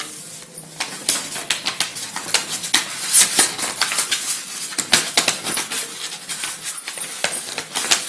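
A stiff sheet of chart paper being handled and folded: crisp rustling and crackling, with many short irregular clicks as the sheet is flipped and pressed into folds.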